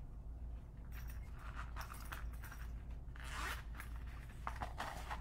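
Scratchy rustling and scraping of something being handled, in short irregular bursts that start about a second in and grow busier toward the end.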